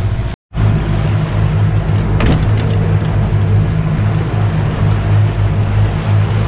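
Outboard motor of a small boat under way, a steady low drone with wind and water rushing past. The sound drops out completely for a moment about half a second in.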